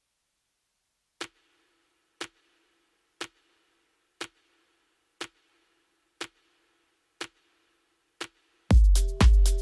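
Sharp clock-like ticks, one each second, eight in all, as the lead-in of a background music track; near the end, electronic dance music comes in with a heavy bass beat.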